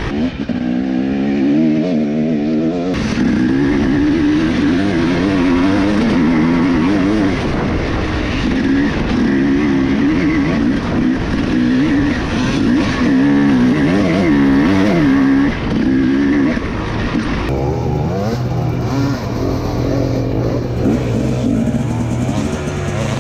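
Enduro dirt bike engine revving up and down as the bike is ridden, its pitch rising and falling every second or so. About seventeen seconds in, the sound cuts abruptly to a steadier, lower engine note.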